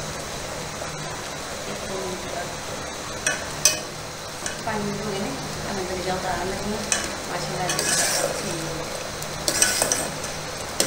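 Metal ladle stirring thick milk porridge in a metal pot, with scrapes and clinks against the pot at intervals, the loudest near the end.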